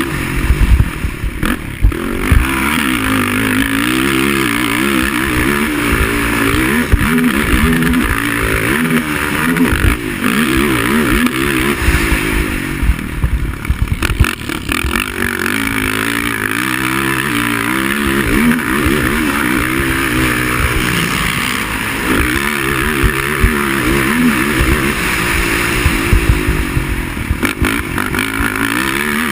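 Racing quad engine revving hard, its pitch rising and falling constantly as the rider accelerates and backs off around the track, with heavy low buffeting and knocks underneath.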